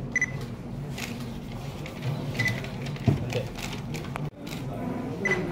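Three short, high camera beeps and a few sharp clicks over a steady low room murmur: cameras focusing and firing their shutters on a posed group photo.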